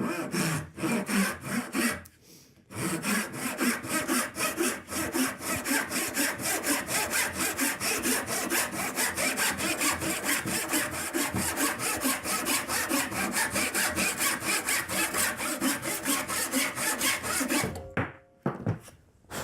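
A small Veritas crosscut handsaw sawing across a piece of oak in quick, even strokes, with a brief pause about two seconds in, then steady strokes until the cut is through shortly before the end. The saw cuts easily, clearing the waste quickly.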